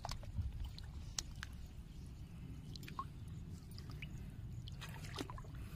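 Sparse light drips and small squelches in shallow muddy paddy water, over a low steady rumble.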